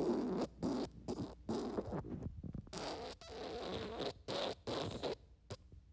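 Small plastic beads being handled and set down on paper: a run of irregular rustling and scraping bursts with short gaps between them.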